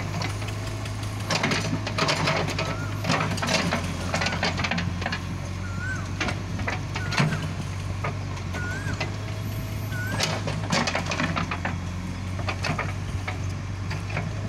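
JCB backhoe loader's diesel engine running steadily while the backhoe bucket digs, with repeated clattering and scraping of soil and stones. Short chirps recur throughout.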